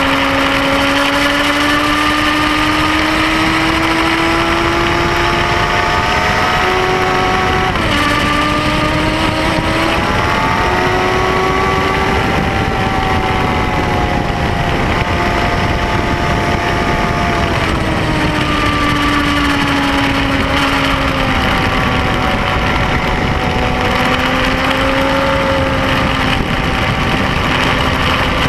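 Triumph Speed Four's 599 cc inline-four engine running hard, recorded onboard. The engine note climbs, drops sharply at a gear change about eight seconds in, climbs again, then falls away gradually and holds lower before rising slightly near the end, over a constant rush of wind noise.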